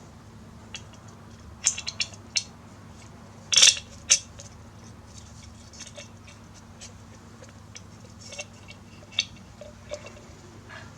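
Scattered light metallic clinks and taps of small metal parts and tools being handled, with a quick cluster about two seconds in and the loudest knocks around three and a half to four seconds in. A faint steady hum lies underneath.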